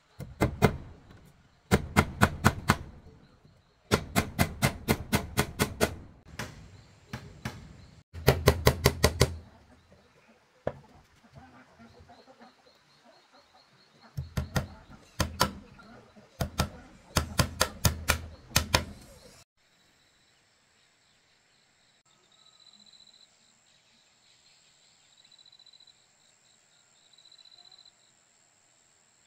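Rapid bursts of knocking, about six or seven blows a second in runs of one to three seconds, through the first two-thirds. Then it cuts off, and faint insects chirp steadily.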